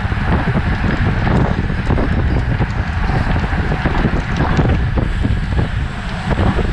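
Wind buffeting the microphone: a loud, uneven, gusty rumble with a steady hiss above it, from air rushing past at bike-racing speed.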